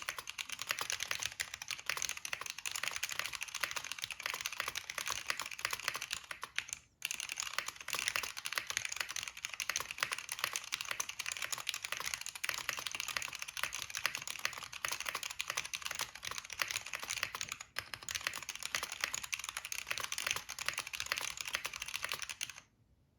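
Steady fast typing on a Tina-A HHKB-layout keyboard with complicated SKCM Brown Alps switches on an acrylic plate, under Zenith Z-150 and Acer keycaps: a dense run of key clacks. It breaks off briefly twice and stops just before the end.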